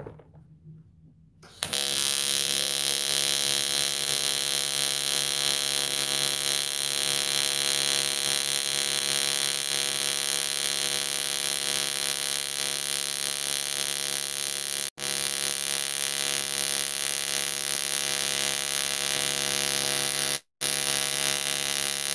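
AC TIG welding arc on aluminum pipe: a steady buzz made of many evenly spaced tones, starting about a second and a half in. It cuts out briefly twice near the end.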